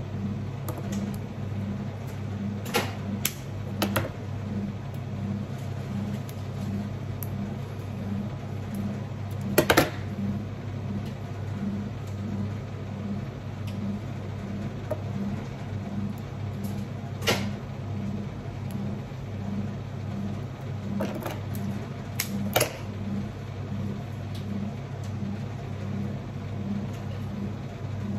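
A machine's steady low hum with a faint regular pulse about one and a half times a second. A few sharp clicks and knocks break in, the loudest about ten seconds in.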